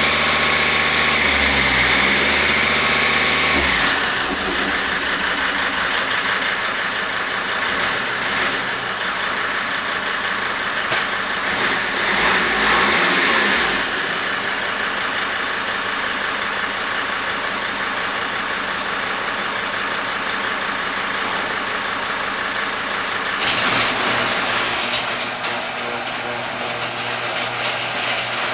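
2005 Dodge Sprinter's turbodiesel engine coming down off a rev with a high turbo whine that fades out in the first few seconds. It then settles into a steady idle, with a short swell in revs about halfway through.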